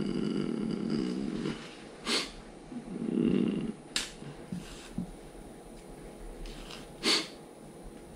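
A man snoring in two rough bouts, the first over the opening second and a half and the second about three seconds in. Short sharp noises and small clicks come in between and near the end.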